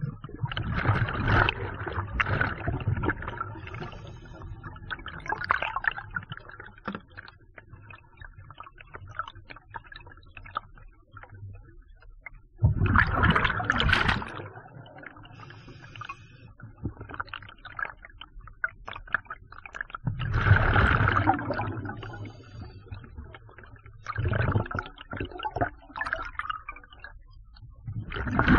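Scuba diver breathing underwater through a regulator: a gush of exhaled bubbles every several seconds, about five in all, with faint clicking and crackle between breaths.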